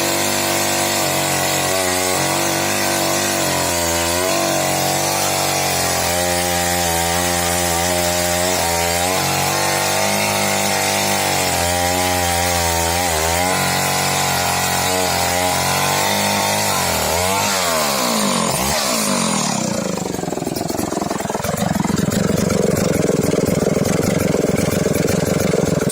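Stihl Contra two-stroke chainsaw cutting through firewood, its engine pitch sagging and recovering as it bogs under load. Near the end it comes out of the cut, the pitch sweeping up and down before it runs on at a steady, different speed.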